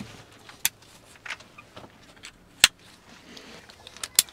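A few sharp clicks and light knocks of gear being handled, a backpack being settled on and a leash clip going onto a dog's harness; the sharpest click comes a little past halfway.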